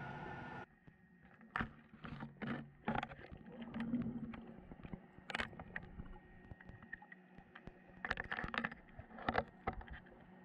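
Underwater audio from a GoPro on a fishing rig: a steady hum cuts off suddenly just under a second in, then irregular knocks and clattering as the camera rig bumps and scrapes over a seabed of mussel shells and stones.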